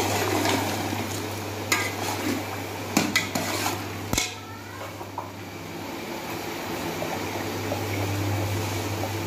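Steel spoon stirring and scraping through chicken korma in a steel pot, with several sharp metal clinks against the pot between about two and four seconds in. This is the bhuna stage, frying the masala after the blended onion-yogurt paste goes in. A steady low hum runs underneath.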